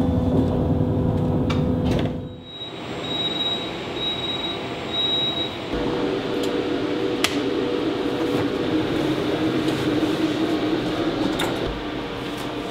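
Steady electric hum of a city bus, with three short high beeps about three to five seconds in and a couple of sharp clicks later on.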